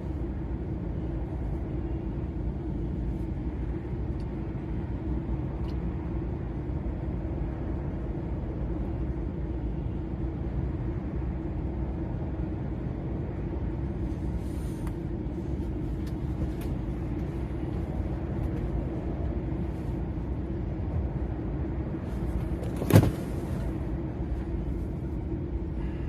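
DAF XF 480 lorry's six-cylinder diesel and tyres running steadily at motorway speed, a constant low rumble. A single sharp knock comes near the end.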